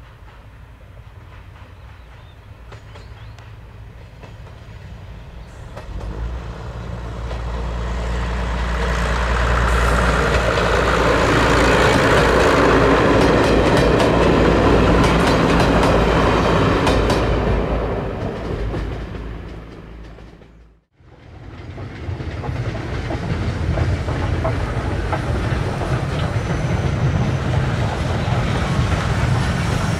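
Train on a heritage railway passing close by. It grows louder from about six seconds in, is loudest in the middle with a fast clatter of wheels on the rails, then fades away. The sound cuts out for a moment about two-thirds of the way through and comes back as a steady train rumble.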